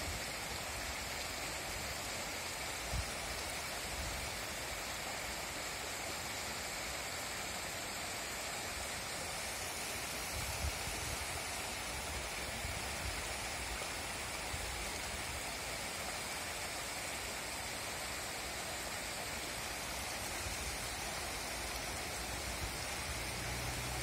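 Steady rush of water from a small mountain waterfall, a stream dropping about 6 m down a rock face, and the shallow river at its foot.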